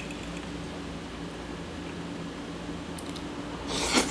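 Steady low hum of a quiet room with a couple of faint clicks. Near the end comes a short, loud rush of noise as a forkful of food is taken into the mouth close to the microphone.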